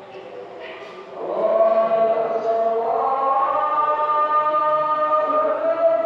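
A man's voice chanting one long, drawn-out phrase that slides between notes. It swells about a second in and then holds.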